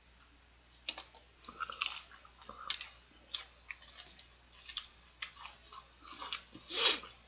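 Close-up chewing and biting of fried chicken breast, with irregular wet clicks and crunches from the mouth. One louder, longer mouth sound comes near the end.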